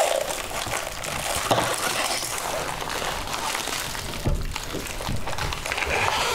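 Packaging tape being peeled off and plastic wrapping rustling and crinkling in the hands, with a dull thump about four seconds in.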